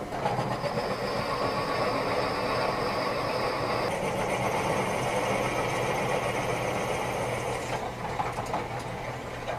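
Drill press running, a large twist drill cutting a 1/2-inch hole through a metal die block: a steady motor hum under the noise of the cut, with a thin high whine that shifts higher about four seconds in and fades near the end.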